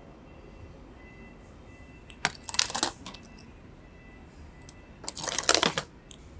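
Fingers rubbing and kneading a person's ear close to the microphone, giving two short bursts of crackly rustling, about two seconds in and again about five seconds in.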